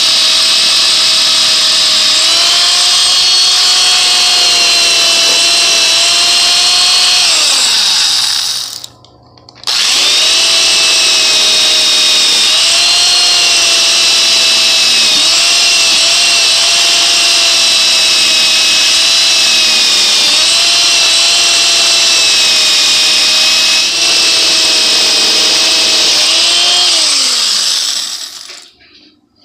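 Power tool spinning a wire brush to strip rust from a mattock's steel spikes, its motor whine dipping in pitch as it is pressed against the metal. It winds down and stops about eight seconds in, starts again a second or so later, and winds down to a stop near the end.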